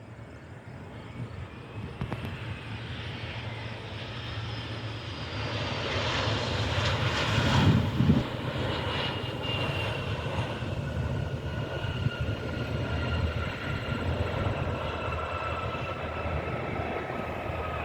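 Arriving Embraer E175 regional jet with its two GE CF34 turbofans passing by. The engine noise swells to its loudest about halfway through, then a high whine falls slowly in pitch as the jet moves away.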